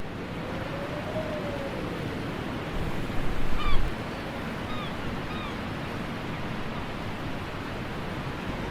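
Surf washing on a shore, swelling louder about three seconds in, with a few short bird chirps over it in the middle.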